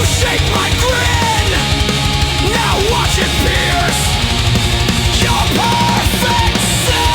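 Heavy metal instrumental passage: a distorted electric guitar lead plays fast bends and slides over driving drums and bass, settling into a long held note near the end.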